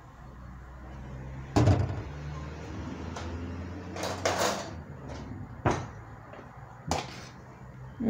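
Glass pot lid knocking against the pot and the counter as it is lifted off and set down: several sharp knocks, the loudest about a second and a half in, and a brief rustling hiss around the middle, over a low steady hum.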